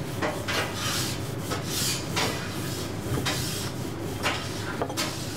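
Wooden rolling pin rolled back and forth over floured flatbread dough on a work surface: repeated rubbing strokes.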